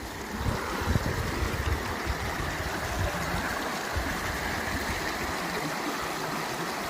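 Creek water running steadily, an even rushing hiss, with scattered low thumps.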